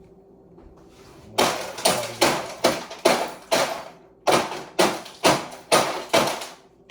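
About a dozen sharp scraping or knocking strokes in a steady rhythm of roughly two a second, with a short pause midway.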